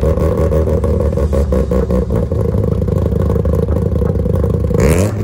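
A classic sports car's engine idling steadily with a slightly uneven, choppy beat, then briefly rising in pitch just before the end.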